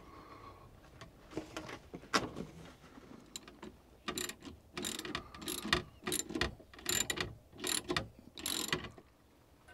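A Jubilee clip (worm-drive hose clamp) being tightened onto a diesel heater's ribbed air-intake hose with a ratcheting tool. A few scrapes and clicks come first, then a run of short ratcheting rasps, about two a second, that stops a little before the end.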